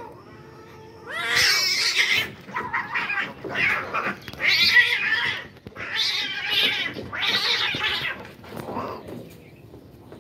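Two domestic cats fighting: a low yowl about a second in gives way to about six bursts of loud, harsh screeching as they grapple, dying down near the end.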